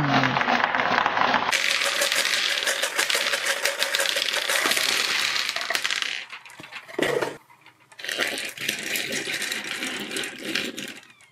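A shower of small hard balls pouring out of a plastic bottle and clattering onto a hard tabletop, a dense run of rapid clicks. After a short lull the balls click and rattle again, more sparsely.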